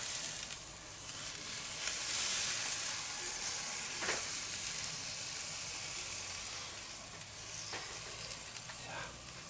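Skewered meat fillet and vegetables sizzling on a hot charcoal grill grate, a steady hiss that swells about two seconds in as the skewer is turned. A few light clicks of metal on the grate.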